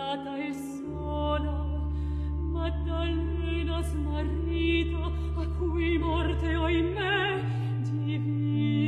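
Mezzo-soprano singing a slow Italian baroque cantata lament with vibrato, over long held bass notes of the continuo that change every few seconds.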